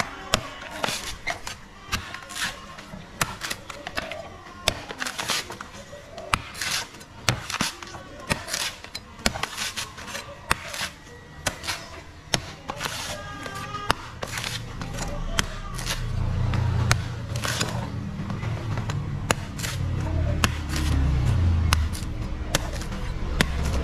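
Heavy cleaver chopping into the dry fibrous husk of a coconut on a wooden stump, in a run of sharp, irregular chops about one or two a second. A low rumble comes in under the chops over the second half.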